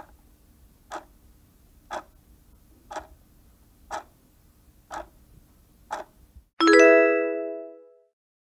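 Countdown timer sound effect ticking once a second, seven ticks, then a bright chime ringing out and fading over about a second as the countdown reaches zero and the answer is revealed.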